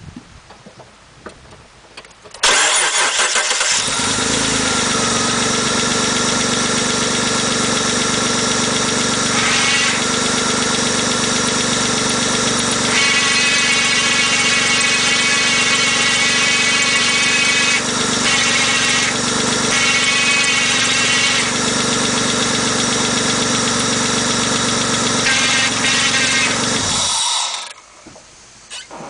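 Car engine starting about two seconds in and running steadily with the transmission in neutral, carrying a weird noise that the owner puts down to the transmission; the upper part of the sound shifts in texture now and then. It shuts off near the end.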